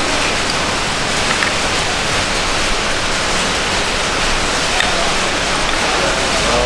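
Heavy rain pouring down steadily, a loud, even hiss.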